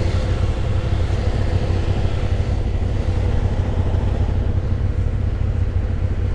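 ATV engine idling with a steady low rumble.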